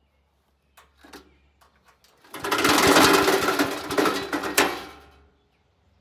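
A few light clicks, then the wood chipper's small gas engine fires and runs raggedly for about three seconds before dying away: a start attempt that does not keep running.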